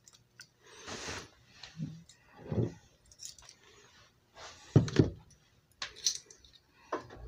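A run of short clinks, knocks and scrapes from a set of metal measuring spoons and a ceramic canister with a metal clamp lid being handled on a kitchen counter, the loudest knock about five seconds in.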